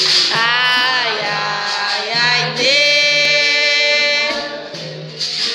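Capoeira Angola roda music: a voice singing long, drawn-out, sliding notes over the steady accompaniment of berimbaus and an atabaque.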